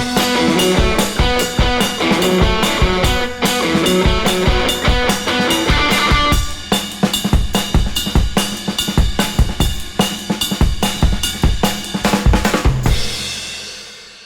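Background music with a steady drum-kit beat; the melody drops out about six seconds in, leaving mostly drums, and the music fades out near the end.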